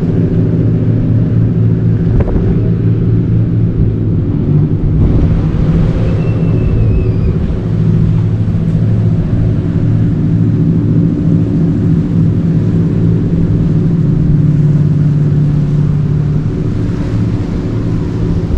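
Steady low drone of a cruise ship's machinery while it backs into its berth, several low tones held together at a constant pitch.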